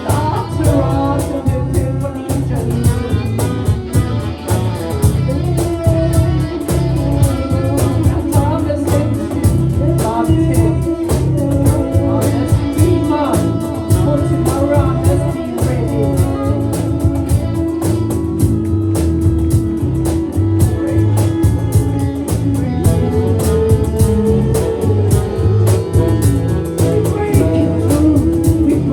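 Live psychedelic rock band playing, with guitar over drums and bass in a steady beat.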